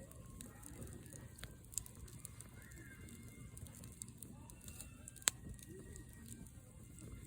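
Wood campfire crackling, with scattered small snaps and one sharp loud pop about five seconds in, over a low steady rumble.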